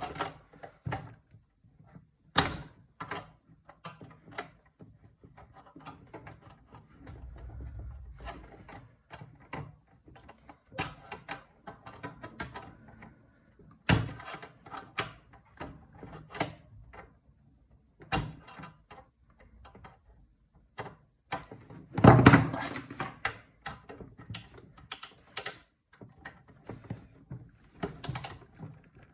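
Scattered sharp clicks, knocks and scrapes of a screwdriver and metal parts being worked on an old desktop PC case during disassembly. A louder, denser stretch of rattling comes about three quarters of the way through.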